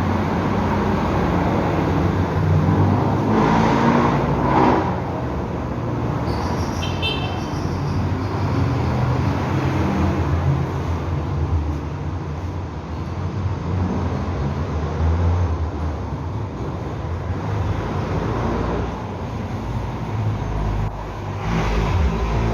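Targa X-150DVC subwoofer in a Subscoop enclosure playing bass-heavy music loudly, the deep bass pulsing in a steady beat. The bass is soft and smooth, driven into an 8-ohm load with the dual voice coils wired in parallel.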